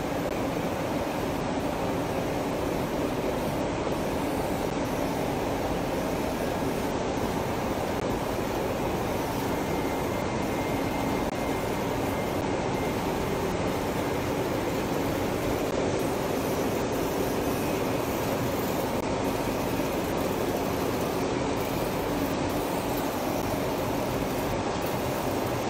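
A chamomile cleaning and sorting line running: an inclined cleated conveyor and a vibrating sieve table driven by electric motors make a steady mechanical din with a low hum underneath.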